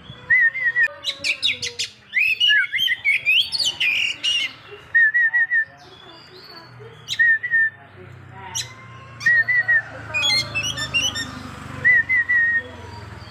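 Oriental magpie-robin (kacer) singing a varied, loud song: fast trills and swooping rising and falling phrases, short runs of three quick notes repeated several times, and sharp high clicks scattered throughout.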